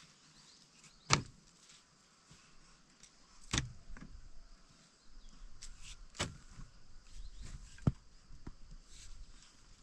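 A series of sharp knocks, four main strikes about two to two and a half seconds apart, with faint rustling and a few lighter taps between them.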